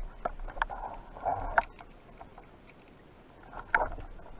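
Underwater clicks and knocks with short rushes of water noise from a wooden speargun, its shaft and line being handled as a freshly speared fish is pulled in. The loudest cluster comes near the end.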